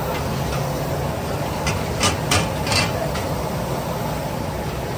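Street-food stall cooking noise: a steady low rumble with a few sharp clinks and knocks of utensils, bunched about two to three seconds in.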